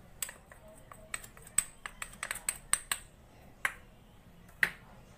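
A spoon clicking and tapping against a container as cornflour is spooned into the food chopper's bowl. There is a quick, uneven run of light clinks, then two single louder taps near the end.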